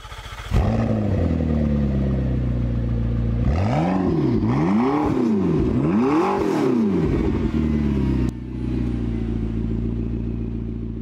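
Car engine idling, then revved three times, each rev rising and falling in pitch over about a second, before settling back to a steady idle. A single sharp click about eight seconds in.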